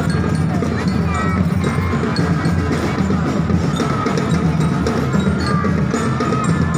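Loud, steady drumming and percussion from a street procession, mixed with the noise of the crowd.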